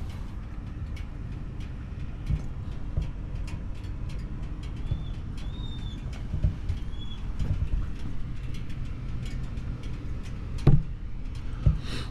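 A steady low hum with a few short high chirps near the middle, typical of a bird, and two thumps near the end.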